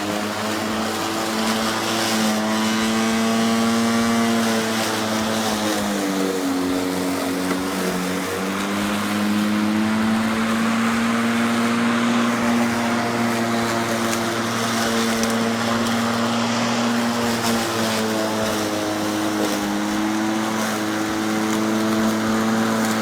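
Greenworks corded electric lawnmower running, its motor and spinning blade making a steady whine with a rushing noise over it. The pitch sags and recovers a few times as the motor takes load, typical of the blade cutting into grass.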